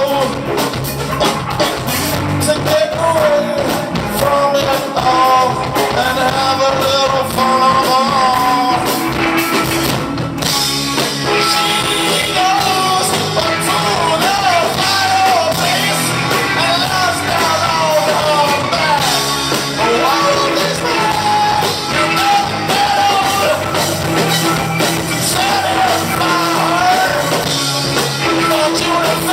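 Rock band playing a song, with a singing voice carrying a wavering melody over the band and a steady drum beat.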